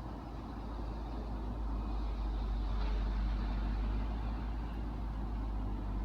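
Passing road traffic: a steady low rumble of a vehicle going by, swelling to its loudest about three seconds in and then easing slightly.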